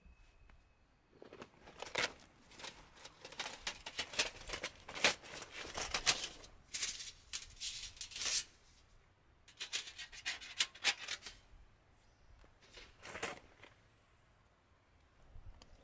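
Thin metal plates and a wire frame of a folding fire stand being handled and unfolded: rustling, scraping and light clinking in irregular bursts, with short pauses in the second half.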